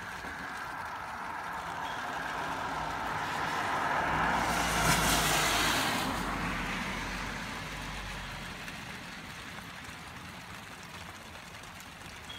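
A car passing by on a wet road, its tyre hiss swelling up over a few seconds and fading away again.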